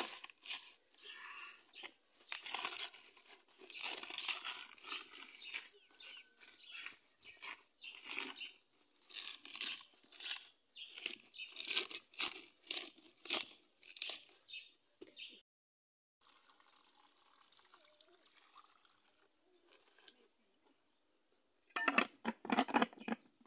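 Fresh banana leaves rustling and crinkling in irregular bursts as hands press them down into an aluminium saucepan. Near the end there is a louder burst as the saucepan's lid is pressed on.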